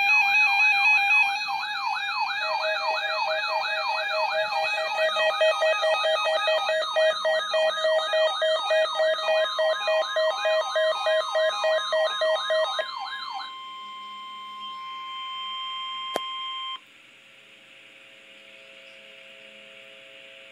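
Weather radio alarm test: several alert tones sound together. A wailing siren tone rises and falls about twice a second over steady beeping tones, with the steady 1050 Hz warning alarm tone of NOAA Weather Radio underneath. The wail and beeps stop about 13 seconds in. The plain warning tone carries on alone for about three seconds more, then cuts off to a faint hiss.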